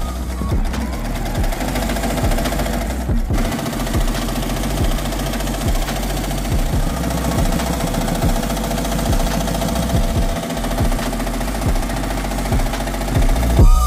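Happy Japan 12-needle Voyager commercial embroidery machine stitching out a design: a steady mechanical running sound with a regular stitching beat.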